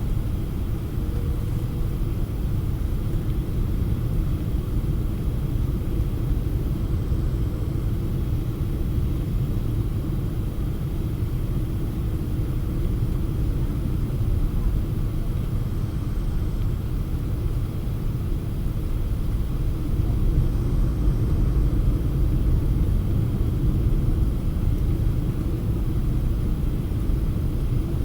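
Steady low rumble of a Boeing 777-200 airliner heard from inside the cabin, engine and airflow noise blended together, growing slightly louder about twenty seconds in.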